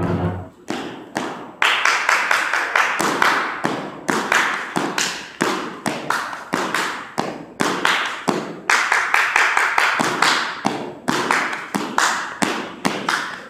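Quick rhythmic run of sharp claps and thuds, like hand claps and stomps in a step or drill routine, each hit followed by a short echo off the hard walls and floor of a large hall.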